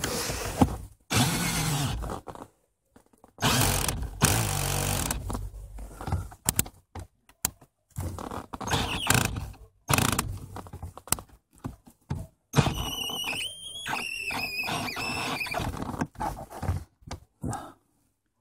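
Cordless 12-volt drill-driver run in short bursts, driving a screw into a car's heater pipe fitting. In the second half a wavering squeal lasts about three seconds.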